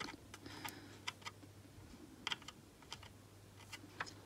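Faint, scattered small clicks and taps from brass soldering tips working on the legs of a surface-mount processor chip on a circuit board, with a low steady hum underneath.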